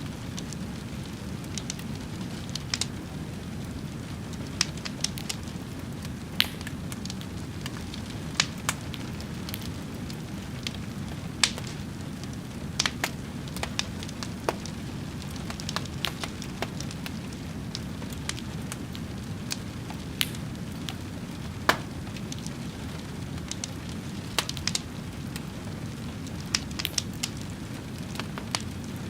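A fire burning: a steady low rush with irregular sharp pops and crackles, about one or two a second.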